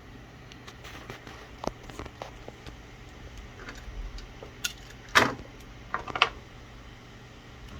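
Hands working the cable's thin wires by hand: scattered small clicks and rustles, with a louder short scratchy burst about five seconds in and a few more just after six seconds.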